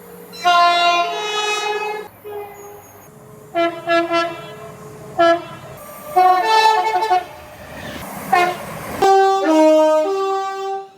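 Train horns sounding about six blasts, each a chord of several tones. Some are short toots and some are held for one to two seconds, and the sound changes abruptly between clips.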